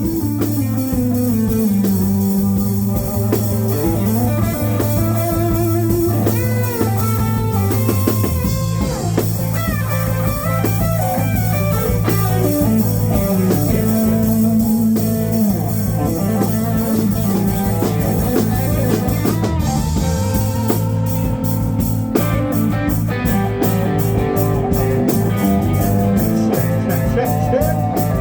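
Live band playing blues-rock: an electric guitar over bass and drum kit. About twenty seconds in, the drums settle into evenly spaced strokes.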